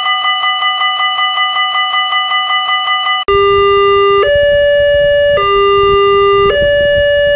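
Railroad crossing warning sounds. First a crossing bell rings rapidly, about five strikes a second. About three seconds in it switches abruptly to a two-tone crossing alarm that alternates between a low and a high note roughly once a second.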